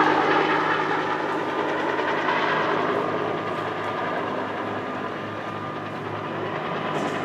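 Bell UH-1H Iroquois (Huey) helicopter, its single turboshaft engine and two-bladed rotor running steadily overhead, growing fainter over the first six seconds as it climbs away.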